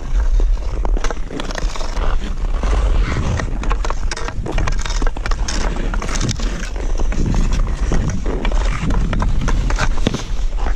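Hockey skates scraping and carving across rough outdoor pond ice, with quick taps of the stick on the puck, over a steady low rumble on the body-worn camera's microphone.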